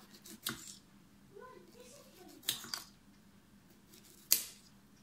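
Kitchen knife slicing a cucumber, the blade coming down through it and knocking on the cutting surface in four sharp chops: one about half a second in, two close together in the middle, and the loudest near the end.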